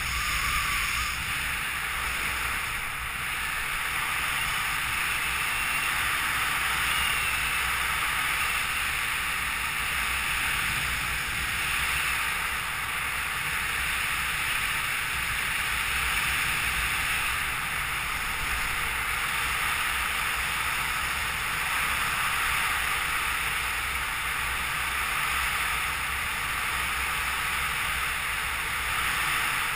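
Steady rush of airflow over the helmet camera's microphone during a speedriding flight.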